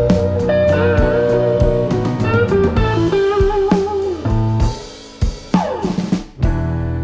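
Jazz background music with a lead guitar playing bending notes over bass and drums. The music thins out briefly about five to six seconds in.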